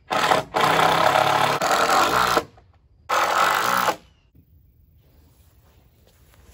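A cordless power driver runs in three bursts, driving fasteners into a wooden deck joist: a short burst, then a long one of about two seconds, then one of about a second. Then it stops.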